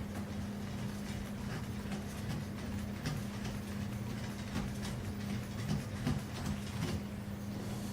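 Faint clicks and knocks of a pressure gate's threaded wheels and screws being turned and worked by hand, over a steady low hum.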